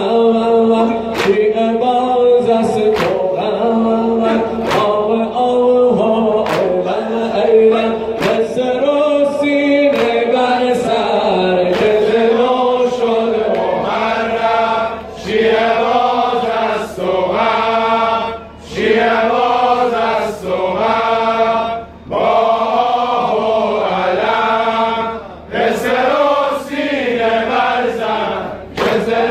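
Men's chorus chanting a Muharram mourning lament in unison, with sharp chest-beating slaps in time, about one a second at first.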